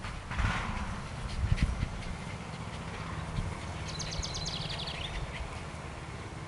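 Scottish terrier rolling on its back in grass: faint rustling over a low steady rumble. A bird gives a quick falling trill of about ten chirps around four seconds in.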